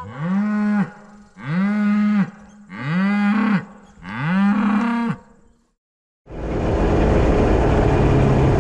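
Cows in a herd mooing: four long moos in a row, each rising then falling in pitch. About six seconds in the mooing stops and a loud, steady wash of sound cuts in abruptly.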